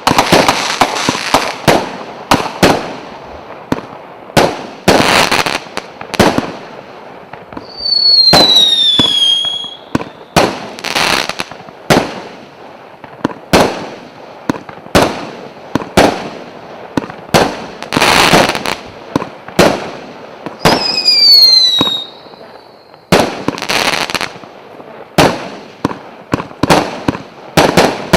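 A 100-shot, 0.8-inch firework cake firing shot after shot: sharp launch and burst bangs one to two a second. Twice, at about eight and twenty-one seconds in, a shot gives a falling whistle lasting a second or two.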